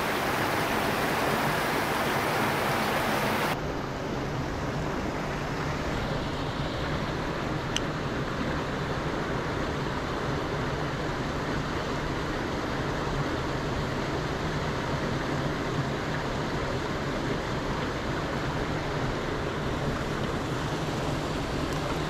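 Mountain stream water running and splashing over rocks in a steady rush. A few seconds in, the sound cuts abruptly to a softer, duller rush with less hiss.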